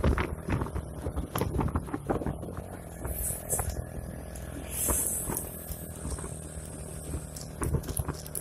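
Heavy truck engines running as trucks pass close by, a steady low hum. Short knocks and clicks come in the first couple of seconds, and a brief hiss about five seconds in.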